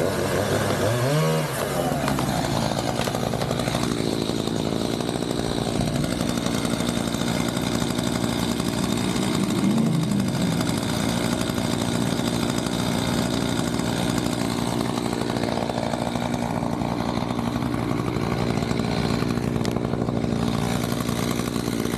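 Two-stroke chainsaw running steadily at high revs while cutting, with brief revs at about a second in and again about ten seconds in.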